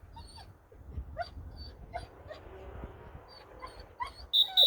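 A retriever whining and yipping over and over in short, high, pitched cries about every half second, the impatient noise of a dog held back while another works. Near the end a short, shrill whistle blast sounds over it.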